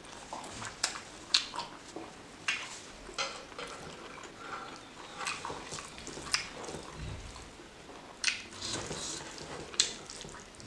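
Eating by hand: fingers squishing and mixing rice and chicken curry in a wooden bowl and pulling at the chicken, with wet chewing and mouth clicks, heard as an irregular string of sharp clicks.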